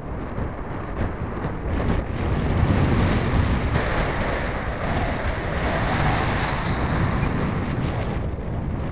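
Wind buffeting the microphone: a gusty rumble that grows louder about two to three seconds in.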